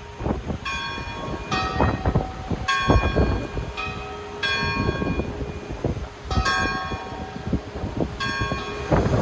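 Church bells ringing: a series of separate strikes at uneven intervals of about one to two seconds, each left ringing out. Gusty wind rumbles on the microphone underneath.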